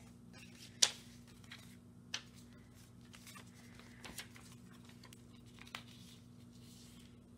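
Photocards and plastic sleeves being handled: a few soft rustles and sharp clicks or taps, the loudest about a second in and another about two seconds in, over a steady low hum.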